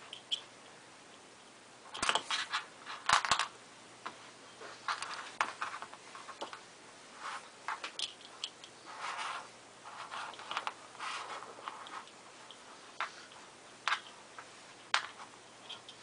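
Small clicks and short scrapes of hand handling: Allen wrenches turning in the screws of a watch case as it is taken apart, with a cluster of sharper clicks about two to three seconds in.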